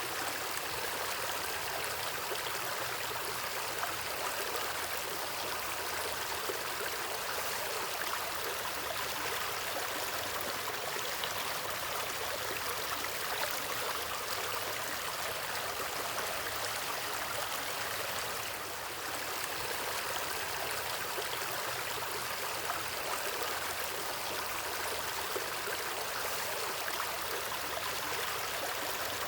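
Water stream flowing, a steady rushing and trickling that dips briefly about two-thirds of the way in.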